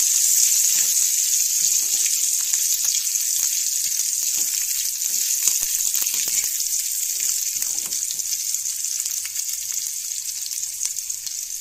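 Green chillies sizzling in hot oil in a metal wok, with light scrapes of a metal spatula stirring them. The steady hiss of the frying slowly fades.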